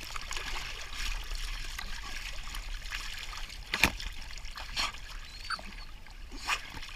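Pool water splashing and trickling as two German shepherds swim and paddle close by, with scattered sharp little splashes and one louder splash near the middle.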